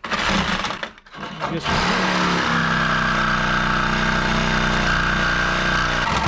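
Electric power saw cutting through the nails at the bottom of a 2x4 stud. It makes a short run, then after a brief pause spins up and runs steadily for about four seconds before stopping.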